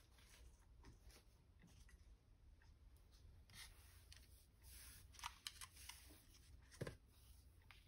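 Near silence with a low hum, broken by scattered faint clicks and rustles of paper and craft pieces being handled.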